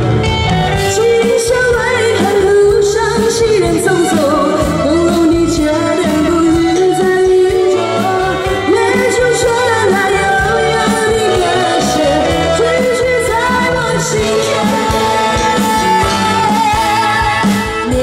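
A woman singing a Chinese pop song into a microphone over a live band, amplified through a PA. The sung melody is held and wavering, with vibrato, over steady accompaniment.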